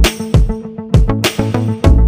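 Background music with a heavy bass beat and a steady rhythm.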